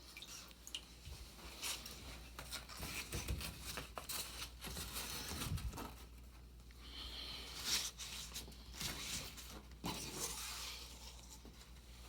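Faint rustling and small handling noises of damp fabric award ribbons being smoothed and hung, with a few light clicks and a slightly louder rustle about two thirds of the way through.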